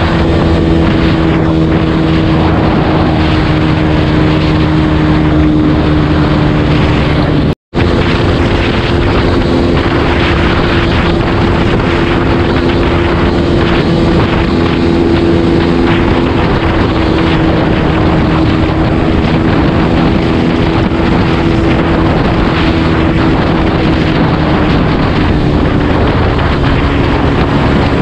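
Yamaha underbone motorcycle's single-cylinder engine held at high, nearly steady revs while riding at speed, with wind rushing over the microphone. The sound cuts out for an instant about seven and a half seconds in.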